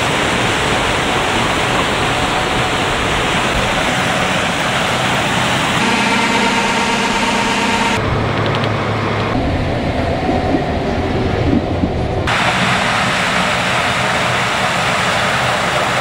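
Corn-harvest machinery, a combine harvester and a tractor with grain cart, running with a steady rushing engine and machine noise that changes abruptly several times. For a few seconds in the middle it becomes a muffled, low, steady engine hum heard from inside a vehicle cab.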